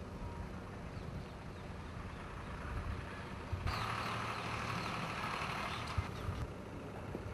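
Outdoor background noise: a steady low rumble, with a band of hissing noise that comes in suddenly for about two seconds in the middle.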